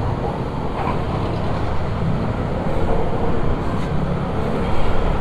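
Steady low engine rumble from idling motor vehicles, with street traffic noise.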